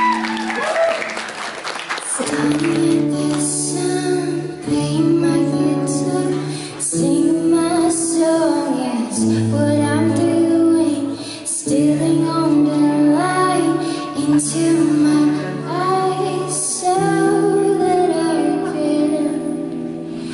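A woman singing a slow song to her own acoustic guitar, which strums held chords that change about every two and a half seconds.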